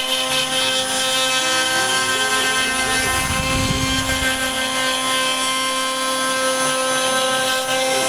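CNC router spindle running with a steady high whine while a ball-nose cutter makes a finishing pass in wood, under a lower tone that steps up and down in pitch as the machine moves. A brief low rumble comes about halfway through.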